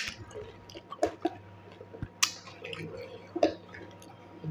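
Quiet chewing and wet mouth sounds from eating pani puri, with a few sharp clicks about a second apart as a crisp puri shell is handled and dipped into a bowl of spiced water near the end.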